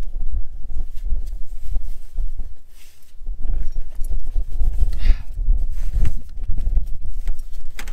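Gusty wind rumbling on the microphone, with irregular clicks and knocks of hand tools on metal while a fuel injection pump is fitted to a tractor engine. The wind dips briefly about three seconds in.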